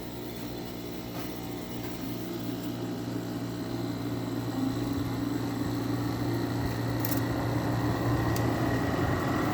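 2009 GE 10,000 BTU window air conditioner running, its stiff fan motor, just sprayed with WD-40, coming up to speed: a steady mechanical hum that grows gradually louder.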